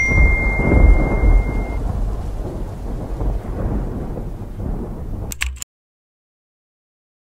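Rumbling thunder with rain noise, slowly fading and then cutting off suddenly about five and a half seconds in. A steady high electronic beep sounds over it for the first two seconds or so.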